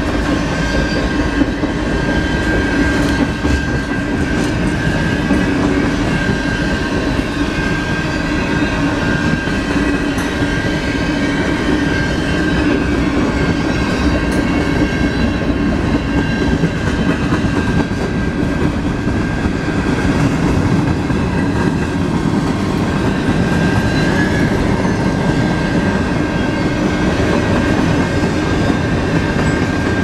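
Freight train cars rolling past at a steady speed: tank cars, then covered hoppers, their wheels rumbling and rattling over the rails. A steady high-pitched tone runs through the rumble.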